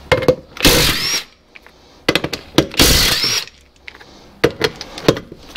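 Impact wrench run in several short bursts, each spinning up with a rising whine, undoing a Morris Minor's wheel bolts.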